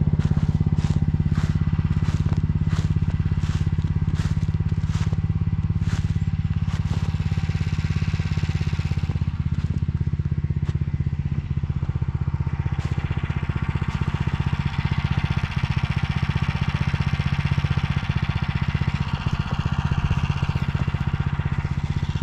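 Single-cylinder petrol engine of a Motor Sich walk-behind tractor running steadily at a constant speed. A regular tapping about every two-thirds of a second sits over the engine for the first seven seconds or so.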